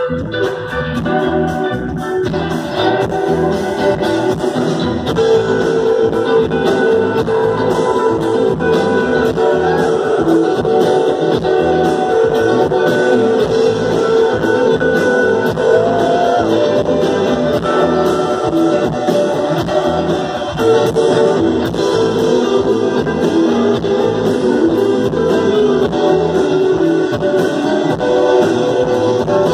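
Live band music with electric guitar to the fore, played steadily with a regular beat and recorded from among the audience.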